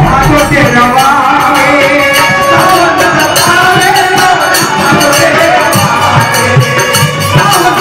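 Background music: a melody over a steady percussion beat.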